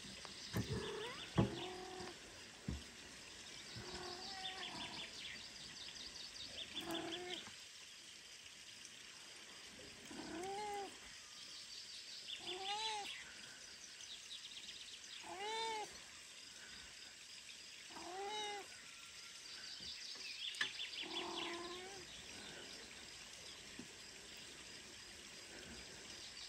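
Weak newborn kitten mewing while it is fed milk from a syringe: about ten short, thin cries, each rising then falling, every two or three seconds. A sharp click about a second and a half in.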